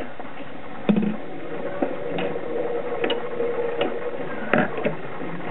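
Telefunken TW 509 record changer mechanism cycling: the tonearm lifts off the record and swings back to its rest. There is a string of irregular mechanical clicks and a steady hum through the middle.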